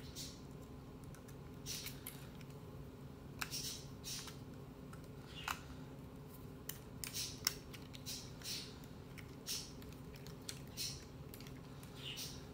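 Faint, irregular small clicks and scrapes of a flat-blade screwdriver, wires and plastic parts being handled while wires are fastened to the terminals inside a Trimline telephone handset, over a low steady hum.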